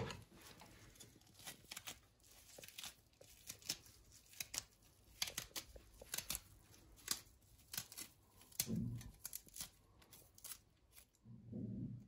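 Fresh mallow leaves being chopped: faint, irregular crisp cuts with leafy rustling.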